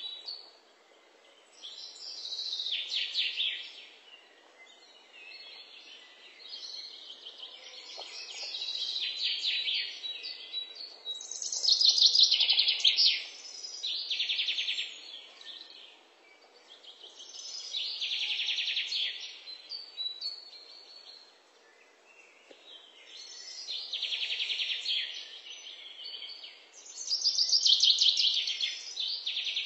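Birdsong: high, rapid trills a second or two long, repeating every few seconds.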